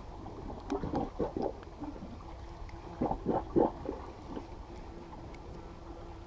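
Sea water sloshing and gurgling against rocks in two short spells of splashes, about a second in and again about three seconds in, over a low, steady rumble.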